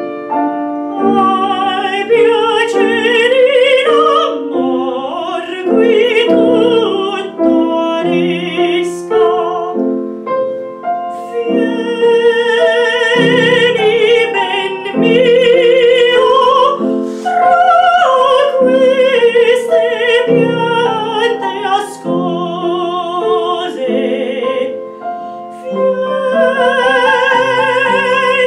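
A woman singing in a classical operatic style, with a wide vibrato on her held notes, over a piano accompaniment.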